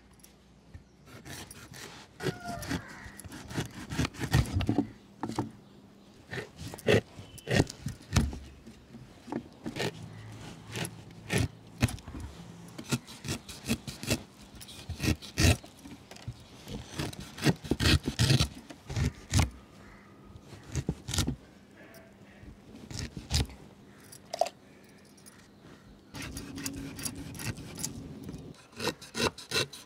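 Knife cutting and peeling tender green jackfruit over a woven bamboo basket: a long run of irregular slicing, scraping and knocking strokes as the blade works through the rind and hits the basket.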